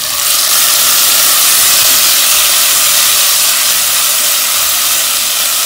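Fresh diced tomato sizzling in a pot of hot lard and sautéed onion: a loud, steady hiss as the watery tomato hits the hot fat.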